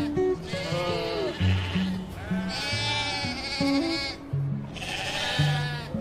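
Sheep bleating three times, the middle bleat the longest, over background music with low plucked notes.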